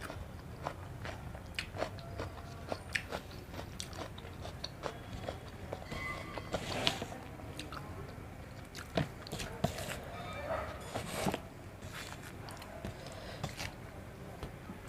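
A person chewing and biting food close to the microphone, eating rice with egg curry, with frequent short wet mouth clicks and smacks throughout.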